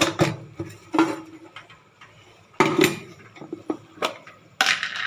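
Kitchen utensils and containers clinking and knocking: several separate short strikes spread through the few seconds, with quiet gaps between.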